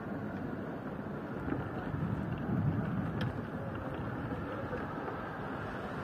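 Steady outdoor background noise: an even, low rumbling haze with no distinct events.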